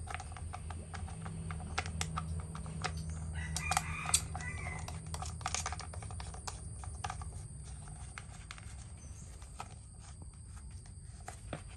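Light clicks and taps of plastic and metal parts as hands fit pieces on the top of a Shindaiwa S231 backpack brush cutter's engine. A rooster crows in the background about three to five seconds in.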